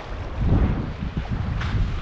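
Wind buffeting the microphone: a gusty low rumble that swells about half a second in, over the wash of lake waves on the shore.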